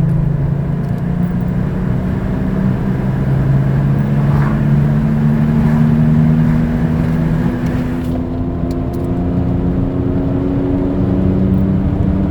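Worn front-left wheel bearing of a Ford Escape howling and humming inside the cabin while driving, its pitch rising slowly as the car gains speed, over steady road noise. The bearing is failing.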